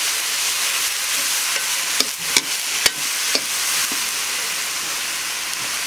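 Chopped banana flower and red lentils frying in coconut oil in an iron wok, sizzling steadily as a metal spatula stirs and scrapes them. The spatula clacks sharply against the pan four times in the middle.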